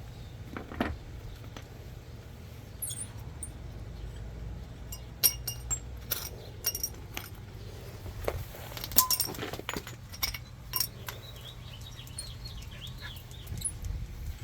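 Scattered light metallic clinks and taps, some with a short bright ring, as of tools and hardware being handled, over a steady low hum.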